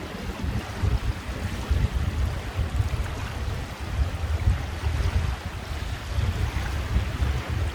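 Strong wind gusting across the microphone with a low, uneven rumble, over a steady rush of wind and choppy water.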